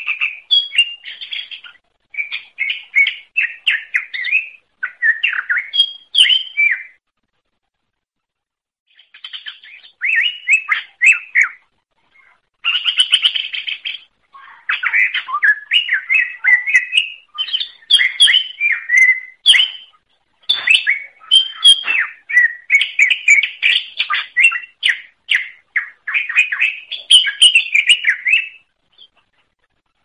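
Songbird singing in fast, varied phrases of chirps and trills, with a pause of about two seconds near the quarter mark and near-continuous song after that. It is a recorded song of the kind used as masteran, to teach cage birds new song.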